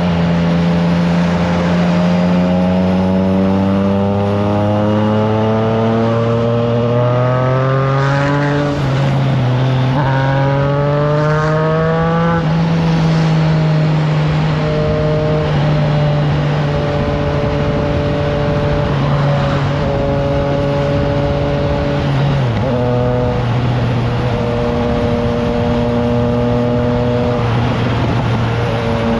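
Triumph Trident 660 inline three-cylinder engine through a FireTong aftermarket exhaust, pulling up through the revs and upshifting twice in quick succession about nine and ten seconds in, then settling into a steady cruise with a brief dip in revs about two-thirds through. Wind rushes over the microphone throughout.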